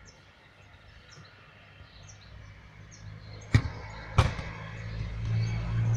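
Two sharp thuds of a rubber play ball hitting the ground, about two-thirds of a second apart, over faint bird chirps, with a low rumble building toward the end.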